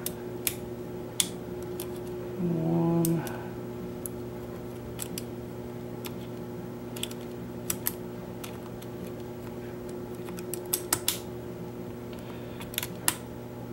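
Sparse light clicks and ticks from a Lishi HU100 pick being worked through a Chevrolet car lock, coming irregularly with a small cluster near the end. A steady low hum runs underneath.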